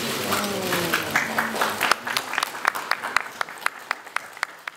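Audience applauding, with voices over the clapping at the start. After about two seconds the applause thins to scattered single claps that fade away near the end.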